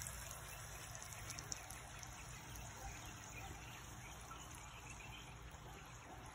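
Fry bread dough frying in hot oil in a skillet: a faint, steady sizzle.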